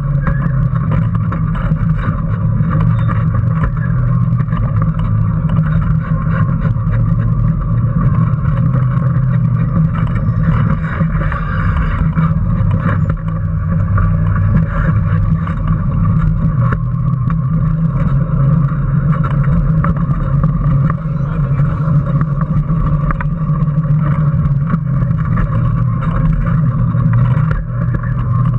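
Onboard sound of a Power Racing Series electric kart running steadily around the track: a constant low motor and drivetrain hum with a higher whine, and frequent small knocks and rattles from the car carrying the camera.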